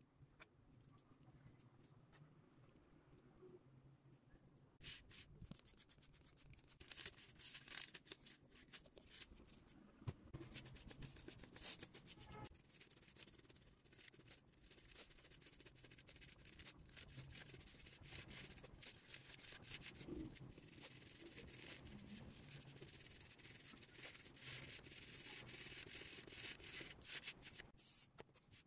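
A stiff-bristled brush scrubbing a dirty bicycle chain, rapid scratchy back-and-forth strokes that start about five seconds in after a few quieter seconds.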